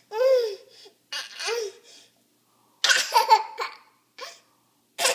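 A toddler laughing in short, separate bursts: a rising-and-falling squeal at the start, choppy giggles in the middle, and a fast run of laughter starting just before the end.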